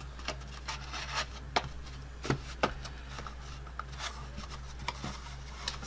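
Cardstock tumbler box being handled and its flip top closed: paper rubbing with a few light taps and clicks, over a steady low hum.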